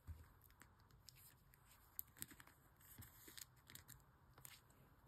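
Faint rustling and crisp clicks of plastic card sleeves and binder pages as photocards are handled and slid into pockets, the clicks busiest in the middle.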